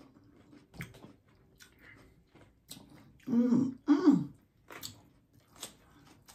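A person clearing their throat twice in quick succession about three seconds in, the loudest sound here, among faint crunching clicks from chewing cucumber-boat chicken salad.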